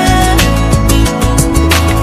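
Background pop music with a steady beat.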